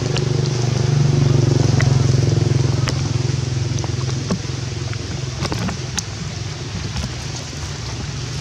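A steady low motor hum, loudest in the first two seconds and slowly easing off, with scattered ticks of raindrops.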